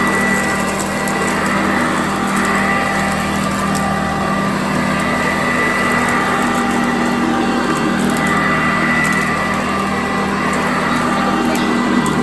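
Sanitaire vacuum cleaner running steadily on carpet, its motor giving a constant whine over a rushing hiss of air.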